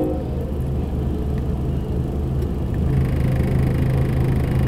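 Low, steady rumble of an approaching Norfolk Southern SD70M diesel-electric locomotive, heard from inside a car, with a hiss that rises and grows a little louder about three seconds in.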